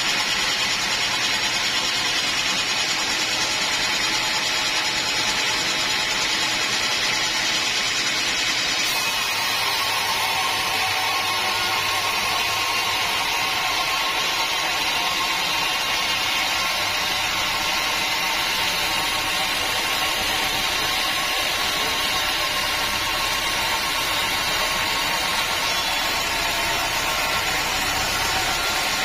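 Sawmill saw and its machinery running with a steady, unbroken machine noise; the tone shifts about nine seconds in.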